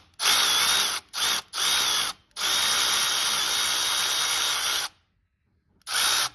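Handheld power tool with a 13 mm socket spinning out the power steering pump's mounting bolts, running in five spurts with a steady motor whine. The longest spurt lasts about two and a half seconds, in the middle, and a short one comes near the end.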